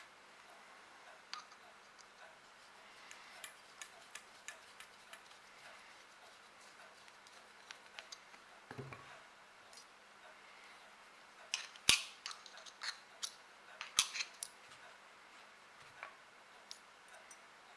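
Small metal clicks and scrapes of a screwdriver and loose lockwork parts on the steel frame of a cap-and-ball revolver as it is taken apart, with a few sharper clicks, the loudest about twelve and fourteen seconds in.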